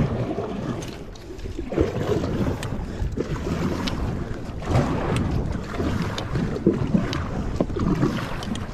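Kayak paddle strokes: the blades dip and pull through the water, with uneven splashing and a few sharp drips and knocks. Wind rumbles on the microphone.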